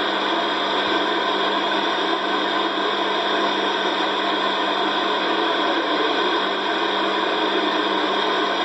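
CB radio receiver carrying a keyed-up transmission that comes through as steady, even static with a low hum and fixed tones, no voice on it.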